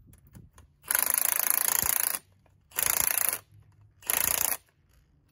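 Cordless impact wrench hammering as it tightens a spring compressor on a strut's coil spring, compressing the spring. It runs in three bursts: a long one of just over a second, then two shorter ones.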